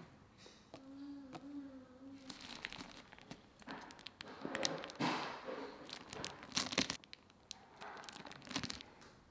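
Plastic piping bag crinkling and crackling in the hand as it is squeezed, in a run of irregular sharp rustles. A short steady held tone sounds about a second in.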